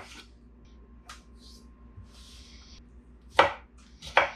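Chef's knife chopping vegetables on a wooden butcher-block cutting board: a few separate sharp knocks of the blade hitting the board, the two loudest about a second apart near the end.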